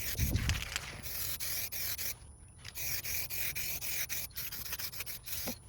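Aerosol can of UPOL high-gloss clear coat spraying in long hissing passes, broken by a short pause about two seconds in and brief breaks near the end. Wind rumbles on the microphone at the start.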